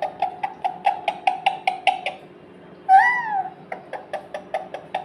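Pet parrot making a fast string of short repeated chirps, about seven a second. About three seconds in it gives one longer call that rises and falls, then goes back to the quick chirps.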